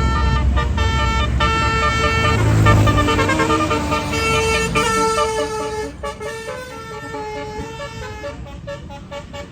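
Tourist bus's multi-tone Basuri 'telolet' horn playing a stepped tune of held notes, over the low rumble of the bus engine. The horn grows fainter in the second half.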